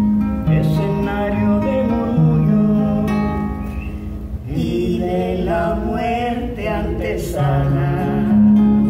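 Classical guitar accompanying a corrido, strummed chords over alternating bass notes. About halfway through, a woman's voice comes in on a held, wavering sung note.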